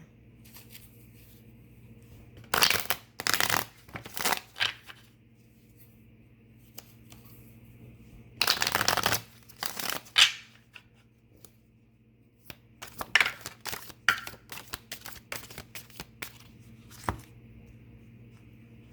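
A tarot deck being shuffled and handled, in three bouts of papery riffling and slapping of cards with short pauses between.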